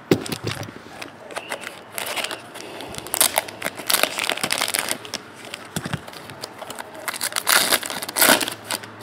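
Trading card pack wrappers crinkling and being torn open by hand, in irregular bursts of crackling.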